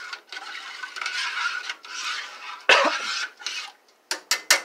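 A utensil stirring and scraping in a metal saucepan of milk heating on the stove. About two-thirds of the way in there is one loud clank, and near the end a few quick, sharp clicks.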